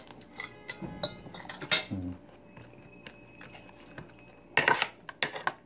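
Metal cutlery clinking and scraping against ceramic bowls and plates during a meal, in irregular taps, with a louder cluster of clatter near the end.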